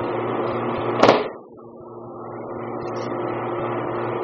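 Steady mechanical hum with hiss, broken about a second in by one sharp smack. Right after it the hum drops away and slowly swells back over the next couple of seconds, as a camcorder's automatic gain recovers.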